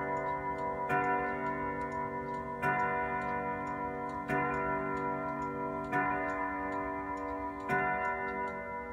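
Daneker grandmother clock striking the hour, five evenly spaced strokes about a second and a half apart, each ringing on in several overlapping tones. The last stroke comes near the end and dies away, over the steady ticking of the movement.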